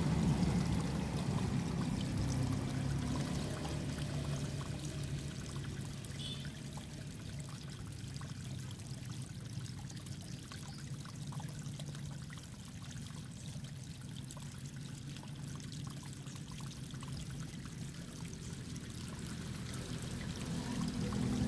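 Water running and trickling in a small irrigation ditch, with a low hum underneath that is louder at the start and again at the end.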